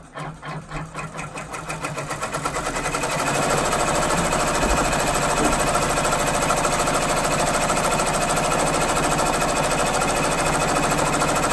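Six-needle embroidery machine stitching down a fabric appliqué piece. The stitching starts slowly and speeds up over the first three seconds or so, then runs fast and steady until it stops suddenly at the very end.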